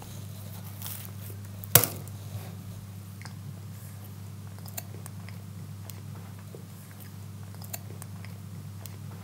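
A man biting into and chewing a mouthful of flaky-pastry vegan steak bake, with faint scattered clicks, one sharp click or knock just under two seconds in, and a steady low hum underneath.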